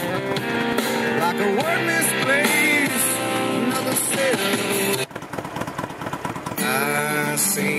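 A song with singing played through the 2014 Indian Chieftain's fairing speakers, driven by a Clarion XC2410 marine amp set at volume 20, with the bike's engine idling underneath. Just past the midpoint the music drops out for about a second and a half, leaving only the engine, then comes back.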